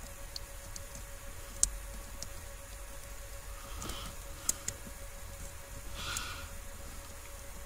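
Small handling sounds of a plastic wiring-harness connector being worked with a small screwdriver and a wire pin: a few sharp little clicks, two of them close together about halfway through, and a couple of soft rustles, over a faint steady hum.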